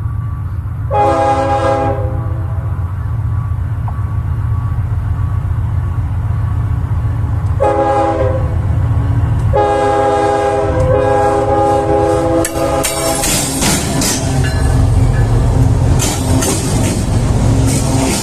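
A 190-ton locomotive passing: its horn sounds a short blast about a second in, then two longer blasts around eight and ten seconds in, over a steady low rumble. From about thirteen seconds the wheels clatter and knock over the rails as it goes by.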